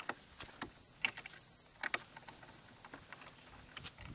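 Hand screwdriver working the screws at a car's fog light housing in the front bumper: scattered light clicks and scrapes, with a few sharper clicks about one and two seconds in.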